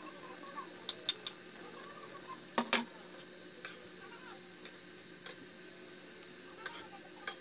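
A spoon clinking and scraping against an aluminium wok while stirring chicken adobo: sharp knocks roughly every second, the loudest a quick double knock about a third of the way in.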